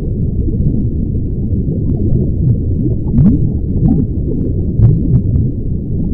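Drinking-water sound effect: continuous low gulping and glugging, full of short bubbly rises in pitch, with scattered small clicks.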